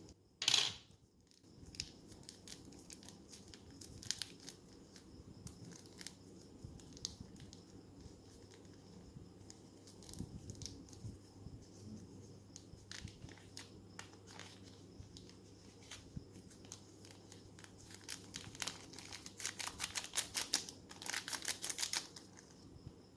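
Plastic ziplock bag being handled, crinkling and crackling in scattered bursts, with a dense run of crackles near the end and one short loud noise about half a second in.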